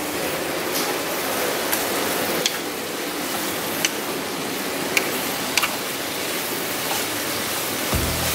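Pomelo peel strips sizzling in bubbling sugar syrup in a pan, a steady hiss, with wooden chopsticks clicking against the pan a few times as the peel is stirred.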